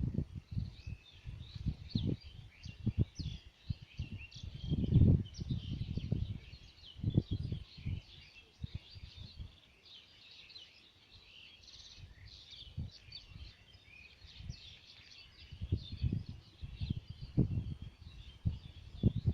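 Many small birds chirping continuously in quick, overlapping high calls, over irregular low rumbling thumps that come and go, loudest around 5 seconds in and near the end.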